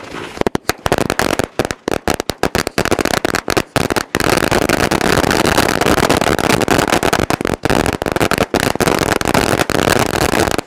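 A 1000-cracker string of firecrackers (ladi) going off. Separate sharp bangs at first quicken into a continuous rapid run of explosions about four seconds in, then thin out to scattered bangs near the end.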